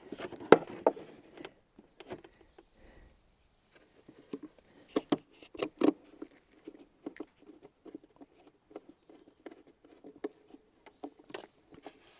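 Irregular small clicks and taps of screws and a screwdriver working on the plastic battery-cover panel under the raised seat of a Honda SH150i scooter, as the screws are driven back in. The sharpest clicks come about half a second in and again around five to six seconds in.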